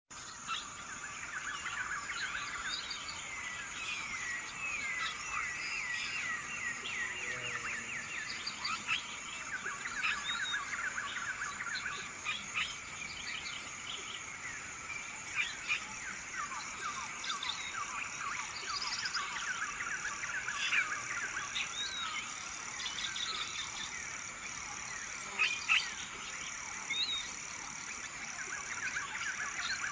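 Birds chirping and singing: many short, overlapping calls and quick sweeping notes, with a steady high-pitched hum beneath them.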